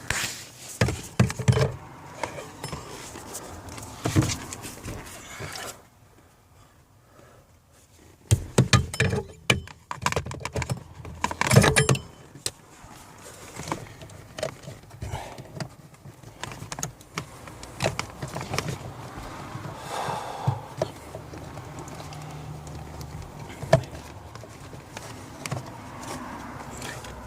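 Scattered clicks, knocks and rattles of hands and tools working at the plastic heater box, with a brief quiet pause about six seconds in and a busier run of knocks soon after.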